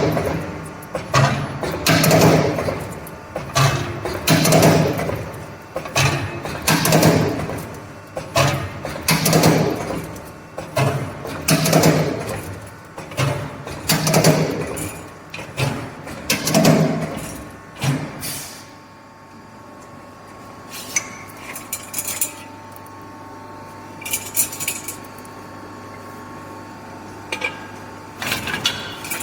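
CNC hydraulic punching machine punching holes in rectangular steel pipe, with a clanking punch stroke about every second or so. After about 18 seconds the strokes stop and the machine runs on with a steady hum and a few metal clinks.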